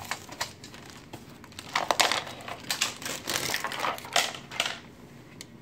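Irregular rustling and crinkling of a paper instruction sheet, with clicks and knocks of plastic toy parts being handled.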